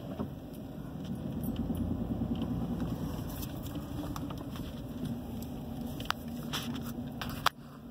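Car cabin noise while driving slowly on a wet, slushy road: a steady low engine and tyre rumble. A few sharp clicks come in the last two seconds, the last one the loudest.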